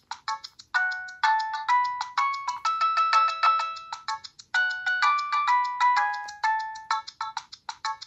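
Nokia 3650 playing a polyphonic MIDI ringtone from its built-in loudspeaker: a fast melody of short, bright electronic notes, with a brief pause near the end before the tune starts again.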